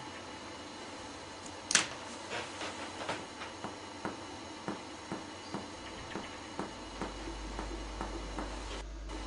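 Finger-on-finger percussion of the upper back to find the height of the lung apex: light taps about two or three a second, with one sharper knock a little under two seconds in, the taps stopping about seven seconds in.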